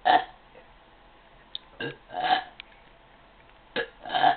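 A girl burping repeatedly: loud burps about two seconds apart, the later two each coming as a short burp quickly followed by a longer one.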